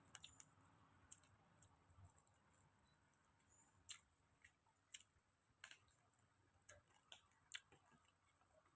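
Near silence with faint, irregular clicks and smacks of a person eating and chewing.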